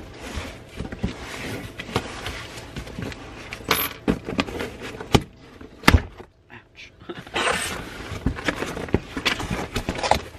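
Cardboard shipping box being handled and opened by hand: rustling and scraping of the cardboard, broken by several sharp clicks and knocks. The loudest knock comes about six seconds in.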